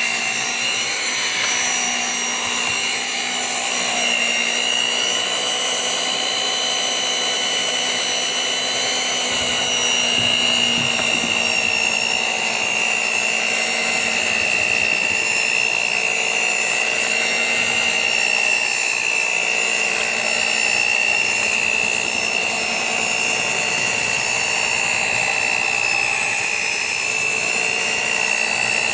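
Electric kitchen mixer running steadily at one speed, mixing batter, with a constant high whine over the motor's hum.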